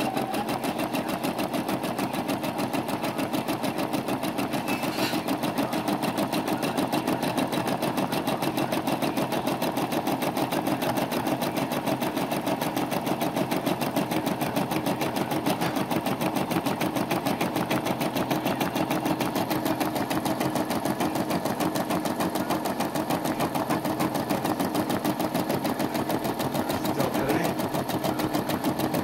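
Brother SE425 computerized embroidery machine stitching out a design, its needle running in a rapid, even rhythm of stitches that holds steady throughout.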